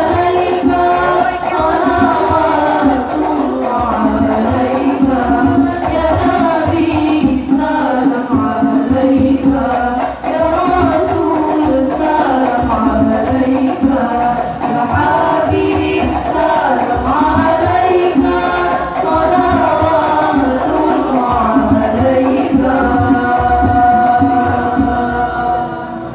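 Banjari group performance: several women singing together into microphones, accompanied by rebana frame drums. Near the end the voices settle onto one long held chord.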